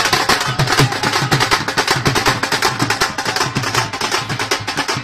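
Dhol drum played fast in a celebration: a steady rapid beat of sharp stick strokes with regular deep bass strokes.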